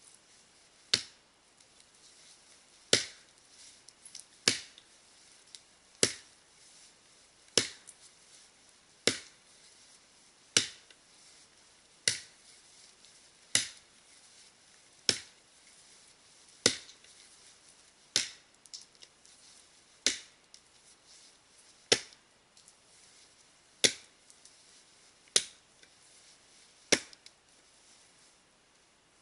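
Axe chopping into the felling cut of a standing conifer trunk: about seventeen sharp strikes at a steady pace, roughly one every second and a half.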